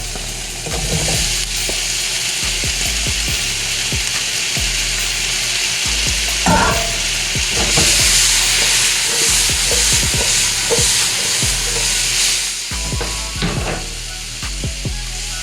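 Diced potatoes, onions and garlic sizzling in hot olive oil in a frying pan while a utensil stirs and scrapes them, with scattered clicks against the pan. The sizzle swells about halfway through and drops back shortly before the end.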